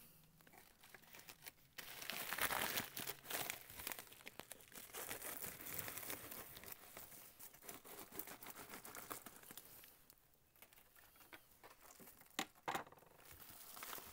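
Plastic packaging crinkling and rustling as a padded mailer and the plastic-wrapped fabric inside it are handled and unpacked. The crinkling is heaviest through the first two-thirds, then eases off, with a couple of sharp clicks near the end.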